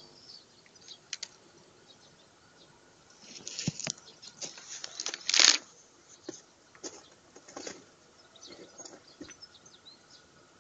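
Faint bird chirps with a few scattered clicks. About three seconds in comes a cluster of short, scratchy noises, the loudest about five and a half seconds in.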